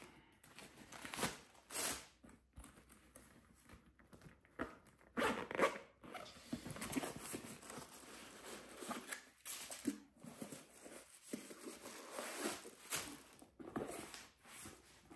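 Irregular rustling, scraping and zip-like handling noises as a pair of new boots is taken out of its packaging and tried on.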